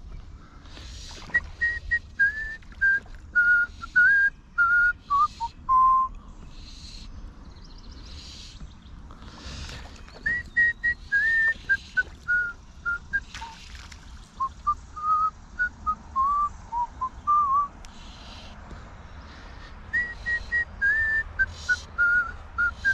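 A person whistling a tune in three phrases, each starting high and stepping down note by note, with short, louder noises now and then in between.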